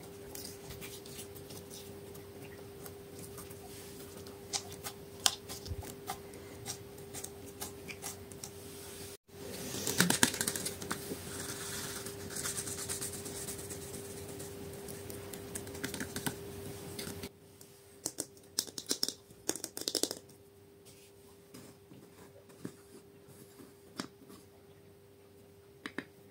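Slime being scooped out of plastic tubs and worked into a glass dish: sticky clicks, crackles and squelches with taps of the plastic containers. There is a faint steady hum underneath, and abrupt cuts come about nine and seventeen seconds in.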